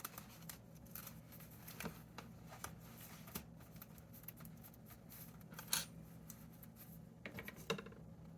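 Faint rustling and small irregular clicks of paper and craft supplies being handled, with a few louder rustles near the end, over a low steady hum.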